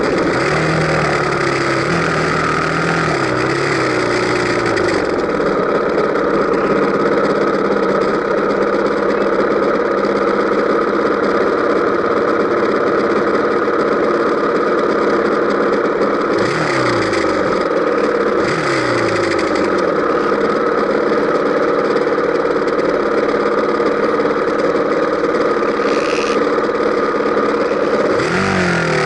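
Dirt bike engine running while riding, its pitch falling and climbing with throttle and gear changes a few times, mostly held steady in between.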